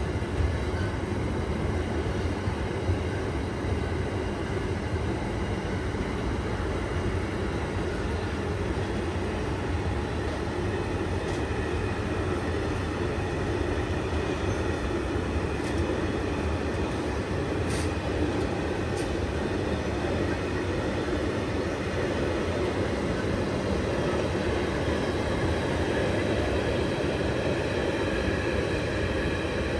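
A train running on the rails, with a steady, continuous rumble and rail noise.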